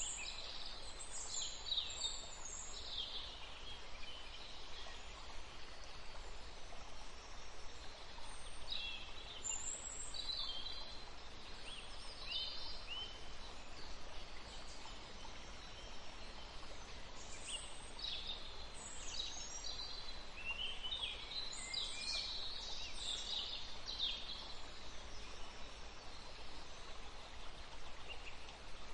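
Several wild birds chirping and calling in short runs of high notes throughout, over steady low background noise.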